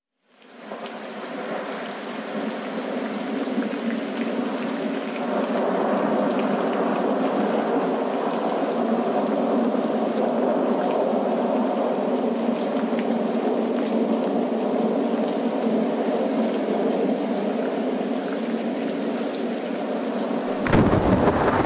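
Steady heavy rain, fading in over the first couple of seconds, with a thunderclap and deep rumble starting near the end.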